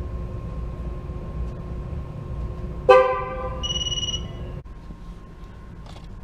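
A car horn gives one short toot about three seconds in, followed right after by a brief high electronic beep, over a steady low rumble.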